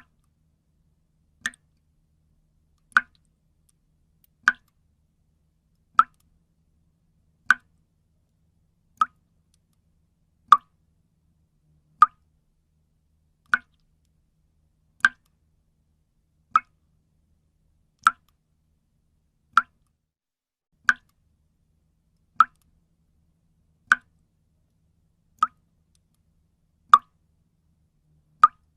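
Single water drops falling into water, one clear plop about every one and a half seconds in a steady, even rhythm.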